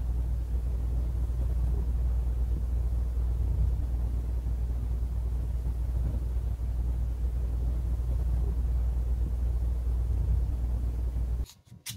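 Domestic cat purring right against the microphone, a steady low rumble while it dozes and is stroked; it cuts off abruptly near the end.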